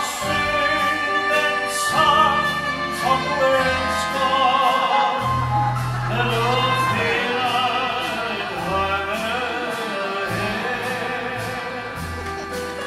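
Live vocal group singing in harmony with a small band: trumpet, upright double bass and drums keeping a steady beat.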